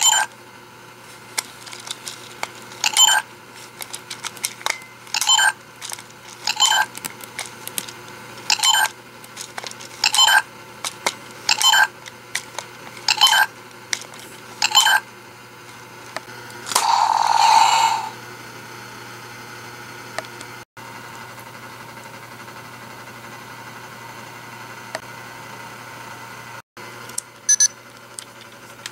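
Electronic beeps from a Ben 10 Omnitrix toy watch, one about every second and a half as the dial is turned through the aliens. About 17 s in the beeps give way to a longer, hissing electronic burst, and then the toy falls quiet apart from a few faint beeps near the end.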